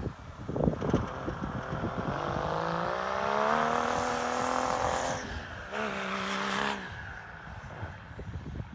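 Land Rover Defender with a swapped Mercedes OM606 inline-six turbodiesel, revved hard while driving through snow. The engine note climbs for about three seconds, dips for a moment, climbs again briefly, then falls away about seven seconds in, with a faint high whistle following the revs.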